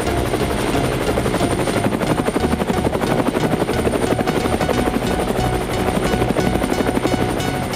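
Small electric motor spinning the propeller of a homemade cardboard toy plane: a steady, fast buzzing whir. Background music plays along with it.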